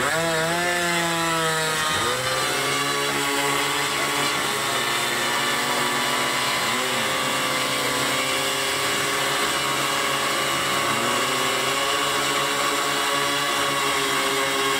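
Small model-aircraft engines on a large radio-controlled Spruce Goose flying-boat model running, a high buzz with several engines at slightly different pitches. The pitch dips and swoops about two seconds in, then holds steady.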